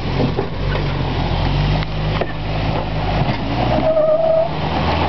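Jeep Wrangler TJ's engine running at low revs as the Jeep crawls over a rock ledge, its pitch shifting up and down with the throttle. A short high squeal comes in about four seconds in.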